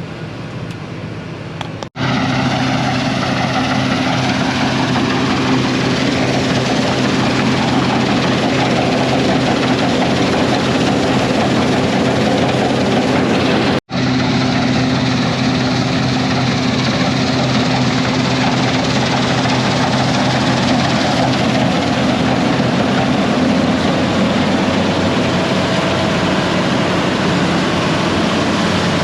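Large diesel harvest machinery running steadily: a loud, even drone with a low engine hum through it. It is broken twice by abrupt cuts, about two seconds in and again about halfway.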